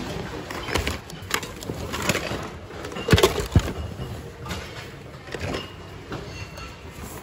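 Plastic items and household odds and ends clattering and rustling as hands rummage through a bin of goods, with irregular clicks and knocks. A cluster of louder knocks comes about three seconds in.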